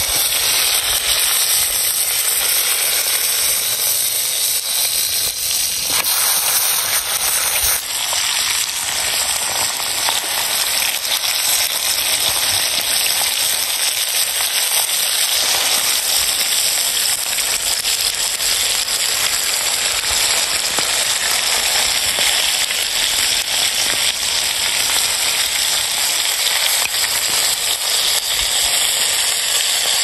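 Steaks frying in hot oil on a round pan over a wood fire: a steady, loud sizzle with scattered small pops and crackles. The sizzle shifts abruptly about eight seconds in.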